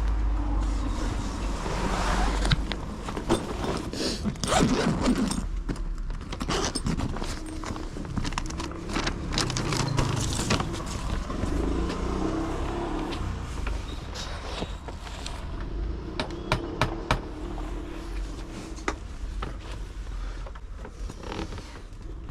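City street sound with a steady low traffic rumble, overlaid by a run of short clicks, rattles and scrapes that are busiest in the first half and thin out toward the end.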